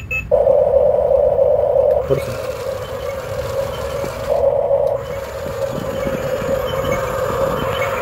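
Battery-powered remote-control toy excavator running, with a steady electronic hum that breaks off about two seconds in and returns briefly around four seconds. Under it is the whir and light clatter of its motors and plastic tracks as it drives and turns.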